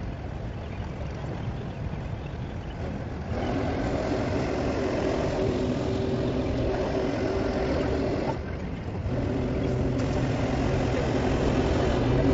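A steady engine hum over a low rumble. The hum comes in about three seconds in, dips briefly past the middle and then grows a little louder.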